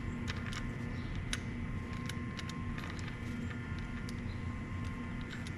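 Scattered light clicks and taps from work on bicycle parts, over a steady low hum.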